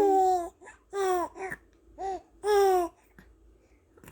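A 78-day-old baby cooing: a held coo trailing off early on, then four short coos that each rise and fall in pitch, spread over the next two seconds.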